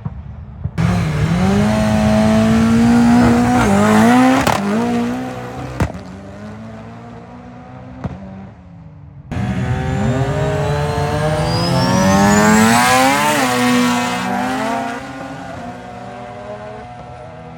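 Car engines at full throttle, revving up and stepping through gear changes, in two separate runs: one from about a second in, lasting a few seconds, and another from about nine seconds in, with a high whine rising through it. A lower, steady engine sound lies between and after the runs.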